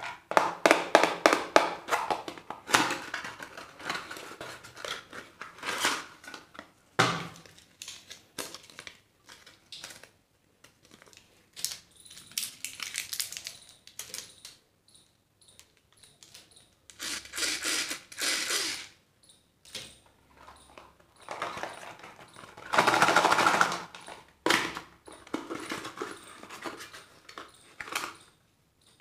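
Hands opening small paperboard boxes and handling what is inside: cardboard flaps scraping and tearing, and plastic candy wrappers crinkling, in irregular bursts with pauses, the loudest about three-quarters through.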